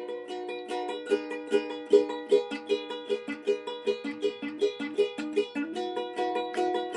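A small acoustic plucked string instrument of the ukulele or guitar kind, played solo in a steady rhythm of about three strokes a second.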